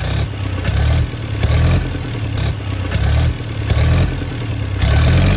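Farm tractor's diesel engine running just after being started with the key, a loud, deep running sound that swells and eases unevenly about every second.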